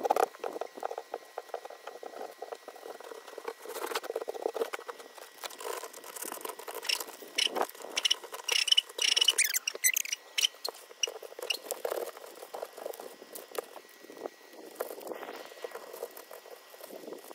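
Sandpaper rubbed by hand over the metal roof flashing and old sealant around a stovepipe's screw heads, scuffing in short, irregular strokes. This is the surface prep before resealing the flue. A little past the middle the strokes turn sharper and quicker.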